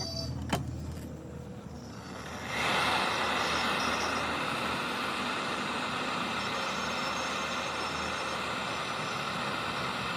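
A sharp click, then about two and a half seconds in a heating tool starts and runs with a steady rushing hiss, heating the seized impeller nut of a monoblock pump so it will come loose.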